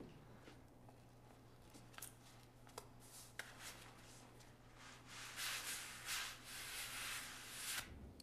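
Scrubbing a tiled floor by hand: a run of scratchy strokes that grows louder about halfway through, after a few light taps.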